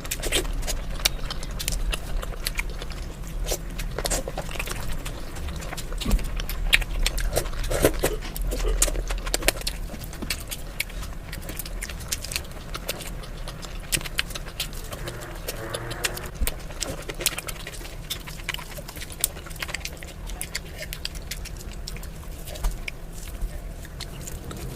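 Close-miked chewing and eating sounds: irregular mouth clicks and smacks with short chewing strokes, over a steady low hum.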